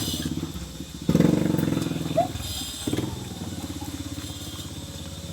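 A small engine running steadily, louder for about a second starting about a second in.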